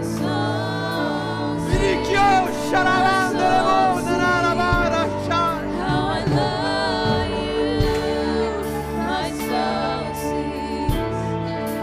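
Church worship music: voices singing a slow gospel song over held keyboard chords, with a low drum hit about every three seconds.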